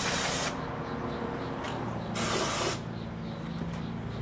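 Aerosol can of carburetor cleaner spraying in two short hissing bursts, the first at the start and the second about two seconds in. It is being sprayed into the nooks of a bare steel motorcycle frame to clean it.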